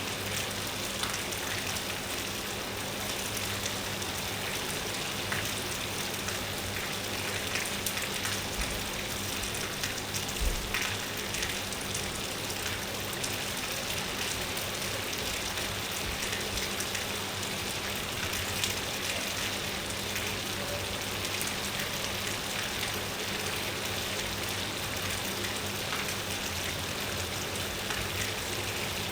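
Steady rain falling, with many small drop impacts, and a brief low thump about ten seconds in.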